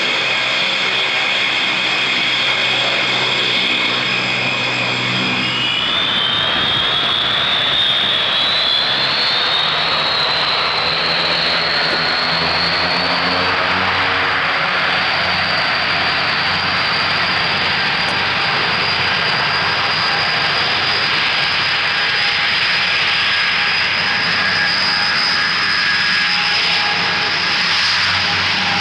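Four Rolls-Royce Dart turboprop engines of a Vickers Viscount running with a high whine over propeller noise. About six seconds in, the whine rises in pitch as the engines are opened up to take-off power, then holds steady as the airliner accelerates down the runway.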